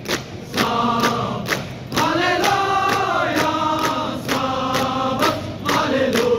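Massed men's voices chanting and singing in unison, with sharp regular beats about three to four times a second, as soldiers perform a military group dance.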